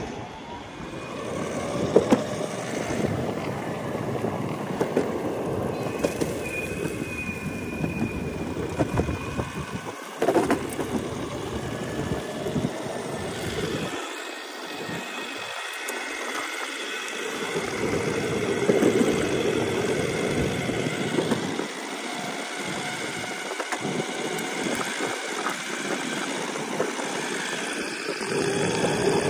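Meepo Envy NLS 3 electric skateboard rolling over a concrete path: a continuous rumble of the wheels on the pavement mixed with wind on the microphone, with a faint high whine at times.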